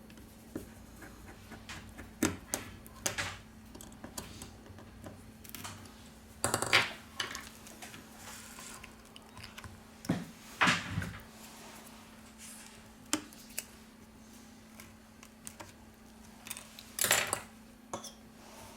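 Small metal and plastic repair tools and parts being picked up, set down and handled on a workbench, with scattered irregular clicks, taps and short scrapes over a faint steady hum.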